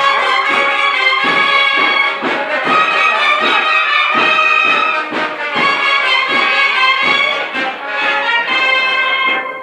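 Brass band playing a Holy Week procession march: sustained brass chords over a regular beat, loud and close. The playing falls away near the end.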